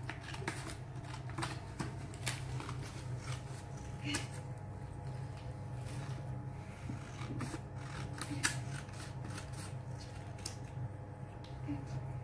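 Small squares of colour paper rustling and tapping as they are picked up and pressed onto a glued paper sheet: light, irregular clicks and crinkles over a steady low hum.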